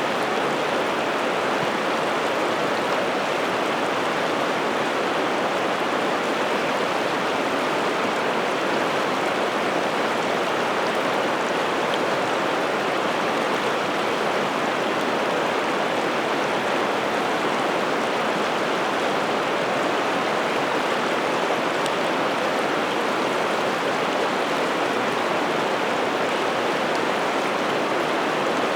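Piteälven river water rushing steadily, an even, unbroken rush with no let-up.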